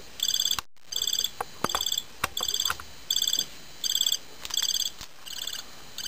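Homemade electronic cricket circuit chirping through a piezo disc: short, high-pitched bursts of rapid pulses, about one burst every 0.7 s, with a few faint clicks between them.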